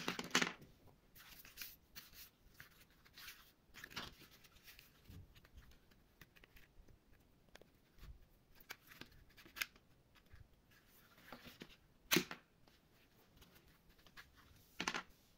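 Small plastic toys being handled and set down on a tabletop: scattered light clicks, taps and rustles, with sharper knocks at the start, about twelve seconds in, and near the end.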